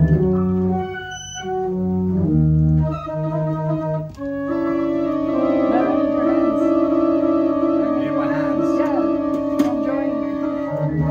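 Electronic organ played over MIDI from a touch-pad controller, sounding held notes and chords. The chords change several times in the first few seconds, and from about four seconds in one chord is held for the rest.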